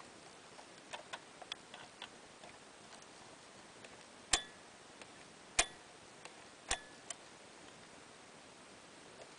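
Small metal clicks from a Kiev-6C camera's mirror-box mechanism being worked with a small tool: a scatter of light ticks, then three sharp clicks a little over a second apart, with a weaker one after the last.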